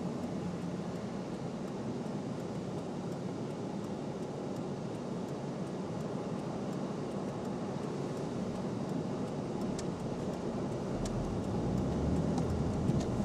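Car running, heard from inside the cabin: a steady low rumble that grows louder, with a deeper rumble coming in about eleven seconds in as the car moves off.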